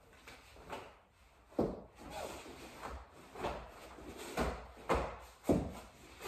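A wooden bo staff being swung through a kata, with feet stepping on foam training mats: a series of about six sharp swishes and thumps, the strongest about a second and a half in and near the end.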